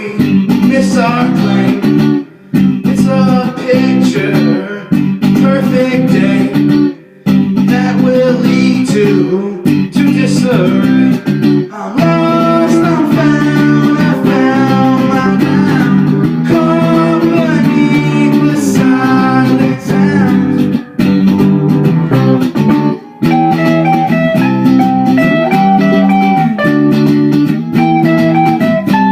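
Rock band playing, with guitars to the fore; the music drops out for a moment several times.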